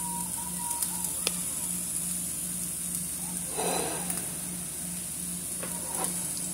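Diced red onions sizzling steadily in shallow oil in a nonstick frying pan, with a brief scrape of a plastic spatula stirring them about halfway through.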